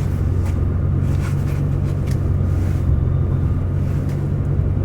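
Steady low rumble of a car driving, heard from inside the cabin, with a few faint rustles.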